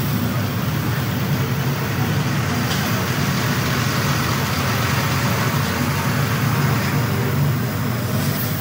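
Heavy highway traffic: large trucks passing close by, a steady rumble of engines and tyres.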